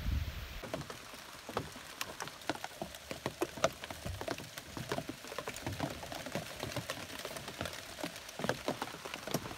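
Rain pattering on the fabric skin of a skin-on-frame canoe carried overhead: a steady hiss with many irregular sharp drop taps. Wind rumble on the microphone in the first half second, then it cuts off.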